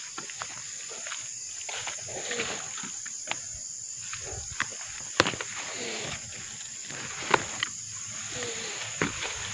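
Steady high-pitched insect drone, with scattered sharp snaps and rustling close by; the loudest snaps come about five and seven seconds in. Three faint, short falling calls are heard through it.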